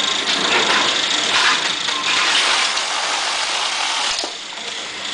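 Automatic carton sealing machine running as a cardboard box is fed through: a steady mechanical whir and rattle from its drive belts and folding and taping parts, with a sharp knock about four seconds in.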